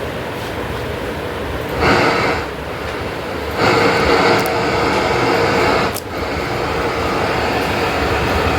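FM radio static from the Target TT-826 amplifier's tuner, hissing through its speakers with no station coming in. It swells louder about two seconds in and again from just under four seconds to six, where a sharp click cuts it back.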